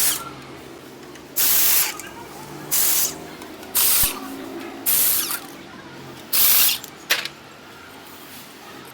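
A series of short hissing spray bursts, about one a second, each a fraction of a second long, with a brief last one a little past seven seconds in.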